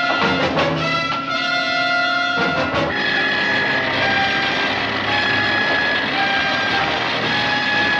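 Dramatic orchestral score led by brass, with held chords that move to higher sustained notes about three seconds in.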